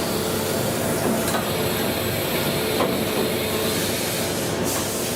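Kao Ming KMC 2000SV portal CNC milling machine running, a steady mechanical noise with a few faint steady tones.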